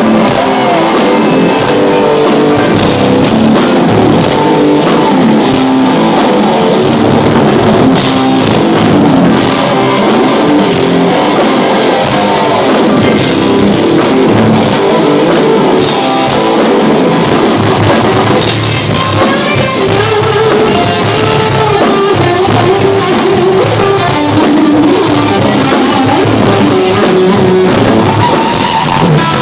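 Live rock band playing an instrumental: electric guitar lead melody over drum kit and bass guitar, loud and continuous.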